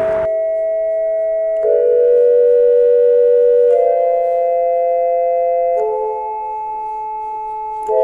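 Slow, beatless music of held chords, each sustained for about two seconds before changing to the next.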